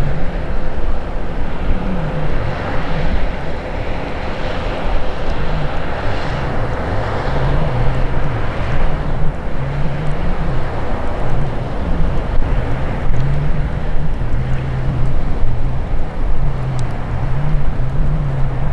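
Fishing boat's diesel engine drones steadily as the boat motors past, over water rushing at its bow, with wind buffeting the microphone.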